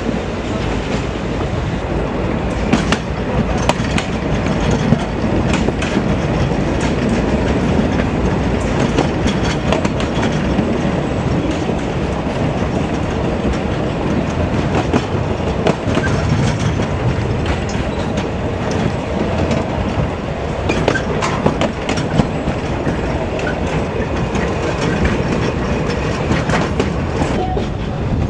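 Narrow-gauge passenger train running, heard from an open-sided carriage: a steady rumble of wheels on rails with frequent clacks over the rail joints.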